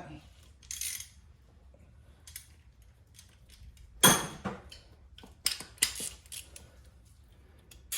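Metal hand tools clinking as a socket and wrench are handled and fitted: a sharp metallic clink about four seconds in, then a few lighter clicks shortly after and one near the end.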